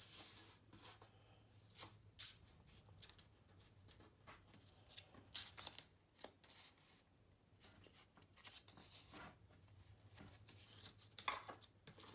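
Faint, scattered rustling and crinkling of a sheet of patterned designer paper being folded by hand along its diagonal and pressed flat, with a somewhat louder rustle near the end.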